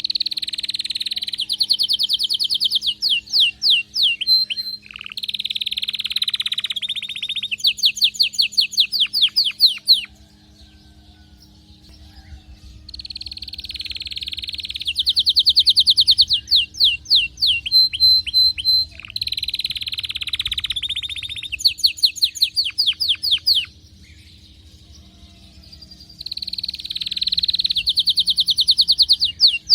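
Domestic canary in breeding condition singing in long phrases: a buzzy rolling trill, then runs of quick repeated notes, with short pauses between phrases.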